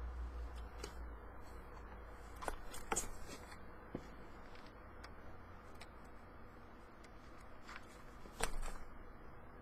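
Scattered light clicks and taps of small craft pieces and tools being handled on a tabletop, loudest about three seconds in and again near the end, over a faint low hum.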